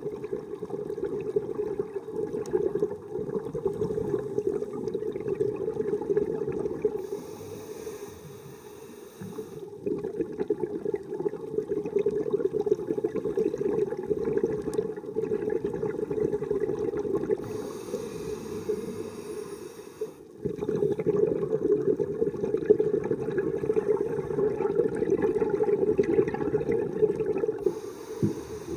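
Scuba diver breathing through a regulator underwater: long stretches of bubbling exhalation, each followed by a short hissing inhalation, three times about ten seconds apart.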